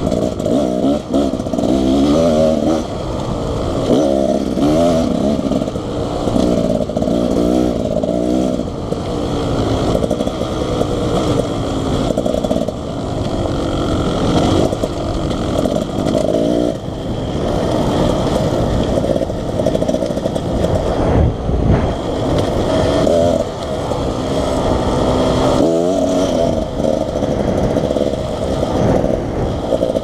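Beta Xtrainer dirt bike's two-stroke engine being ridden along a trail, its pitch rising and falling over and over as the throttle is opened and closed.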